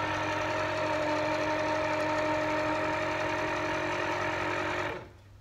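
Electric citrus juicer running, its motor giving a steady hum as an orange half is pressed onto the spinning reamer; the motor cuts off suddenly near the end.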